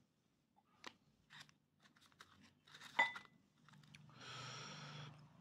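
Close-up chewing and crunching of food, with light clicks of chopsticks against the dishes and one sharper click about three seconds in. About a second of steadier noise follows near the end.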